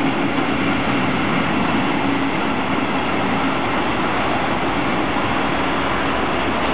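Intermodal freight train of lorry trailers and swap bodies on pocket wagons rolling past as its last wagons go by: a steady rumbling noise of wheels on rail, with a low hum that is strongest in the first few seconds.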